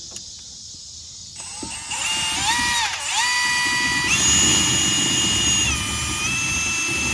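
Power drill motor whining under a variable-speed trigger, starting about a second and a half in. Its pitch rises, dips briefly, then holds at a few different speeds, stepping higher and then lower again.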